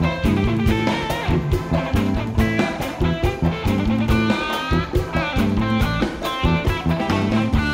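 Live band playing an instrumental passage: an electric guitar lead with bent, gliding notes over bass and a steady drum-kit beat, with no singing.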